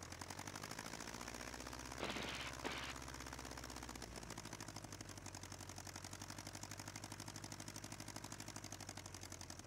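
1946 Aeronca Champ's small flat-four engine running at idle while the plane taxis, a steady, fast, even pulsing; a short rush of noise about two seconds in.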